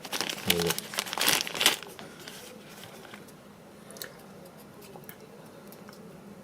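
Plastic packaging crinkling and rustling as it is handled and opened for about two seconds, then a few faint clicks.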